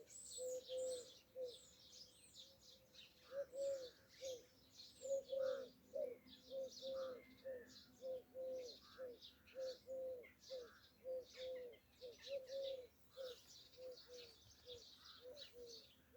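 Birds calling faintly: a low note repeated about twice a second, with high chirps over it.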